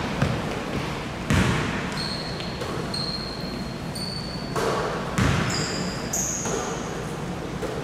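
Basketball bouncing on a gym floor during play, a few echoing thuds, with several short high squeaks over the hall's background noise.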